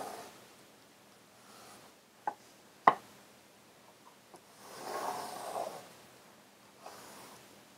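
Pencil scratching on construction paper as it traces around a plate, with two sharp knocks about three seconds in as the plate is set down, the second the loudest. The pencil scratching comes again around five seconds in, with a faint tap near the end.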